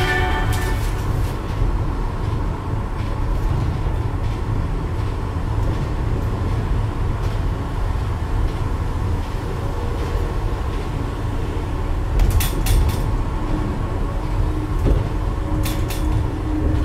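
Cable-hauled people-mover car running along its elevated guideway, heard from inside the car: a steady low rumble with a faint whine over it, and two short bursts of rattling clicks, about twelve and sixteen seconds in.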